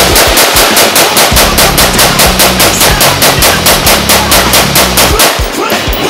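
AR-15 rifle firing a long, fast, evenly paced string of shots, about six a second, stopping near the end.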